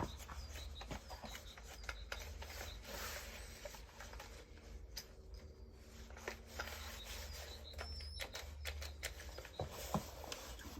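Faint handling noises: scattered small clicks and rustles of tools and metal parts being picked up and set down, over a low steady hum, with a sharper click at the very start and another near the end.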